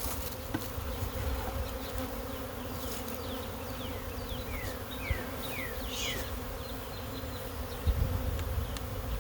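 A swarm of honey bees buzzing en masse, a steady dense hum, the bees stirred up after being shaken into a hive box. Short falling chirps repeat faintly above the buzz.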